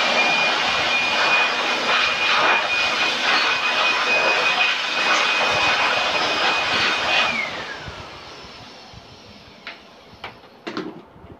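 Handheld electric air blower running at full speed, blowing dust out of an opened desktop PC case: a loud rushing of air with a steady high motor whine. About seven seconds in it is switched off and the whine falls as the motor spins down, followed by a few light knocks near the end.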